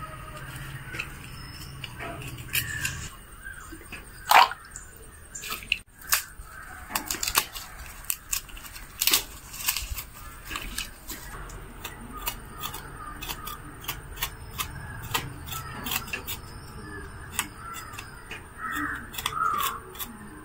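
Irregular sharp clicks and crackles of a knife cutting through shallots and garlic and their papery skins being peeled off by hand. A few crow caws come in near the end.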